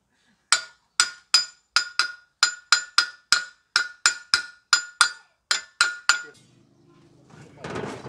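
Hammer tapping a steel shaft-and-collar part from a Kubota rice reaper's auger assembly: about seventeen quick, ringing metal-on-metal blows, roughly three a second, stopping about six seconds in.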